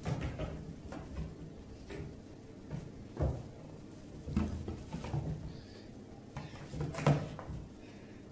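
Cats' paws thudding and scrabbling on a wooden floor as they pounce and scamper, a scatter of soft knocks, the loudest about three and seven seconds in.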